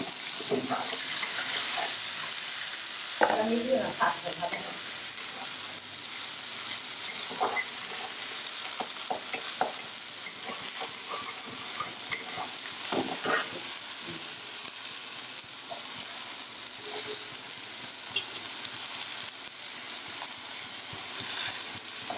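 Chopped onions sizzling steadily in hot oil in a wok, being fried until reddish. A metal spatula stirs them, scraping and knocking against the pan now and then.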